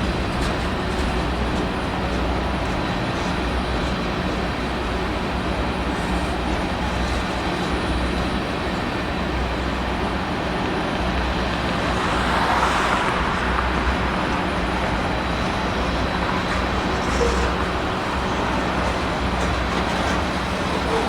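Union Pacific local freight train running, a steady rumble with a low engine hum under it. A louder rushing swell rises and fades about twelve seconds in.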